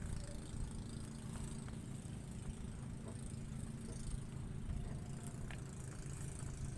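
A motor running steadily with a low, even hum, with a few faint clicks.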